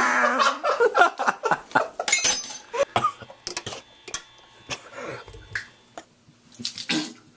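A man coughing, gagging and spluttering in short, irregular bursts, choking on a mouthful of dry ground cinnamon. The bursts come thickest in the first few seconds, thin out, and there is one louder burst near the end.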